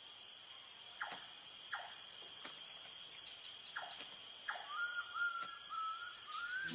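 Night-time tropical rainforest ambience: a steady high trilling of crickets and other insects, broken by several short falling calls from an unseen animal. A wavering whistle-like tone starts near the end.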